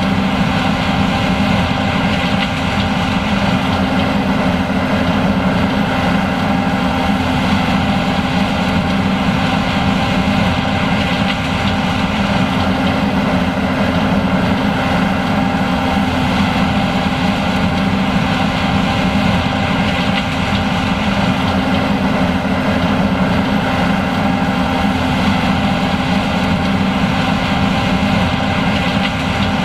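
John Deere S780 combine running steadily while harvesting corn: a constant engine and machinery drone carrying a few steady tones, unchanging throughout.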